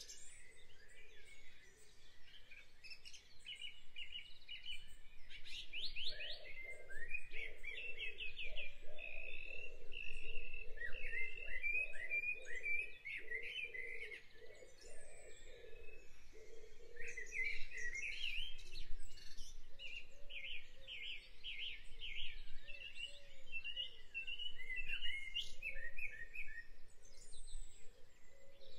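Small songbirds singing: repeated quick runs of high chirps and trills. Through the middle there is a softer run of lower notes underneath.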